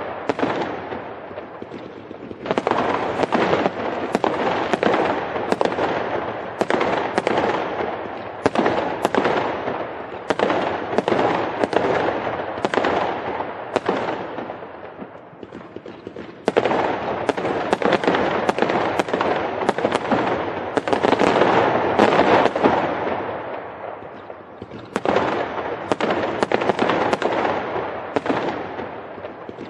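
Fireworks going off in a dense, continuous barrage of bangs and crackling. The barrage swells louder three times, about two, sixteen and twenty-five seconds in, and dies down in between.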